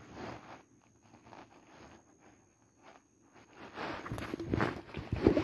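Handling noise close to the microphone: rustling and knocks of a hand and sleeve against the phone while a caught fish is gripped, growing louder over the last second and a half, with a sharp knock near the end.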